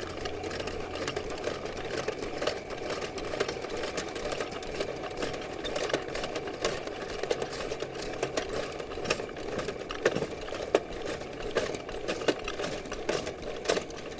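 Electric drum drain snake running in forward, its motor humming steadily while the cable spins down the main sewer line, with irregular clicks and rattles throughout.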